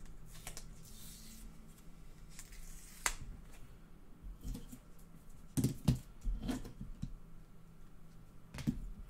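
Trading cards in hard plastic holders being handled: a soft rustle near the start, then about five scattered sharp clicks and knocks as the plastic cases are picked up and set down.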